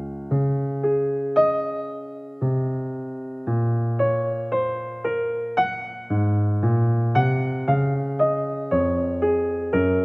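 Background piano music: a slow melody of single struck notes and chords, each fading before the next.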